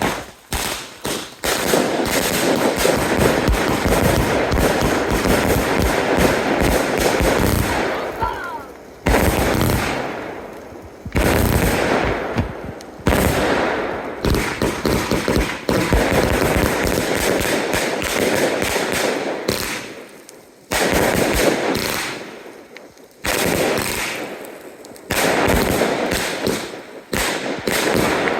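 Fireworks firing in rapid volleys: several long runs of fast bangs and crackling, each broken off by a short lull before the next starts.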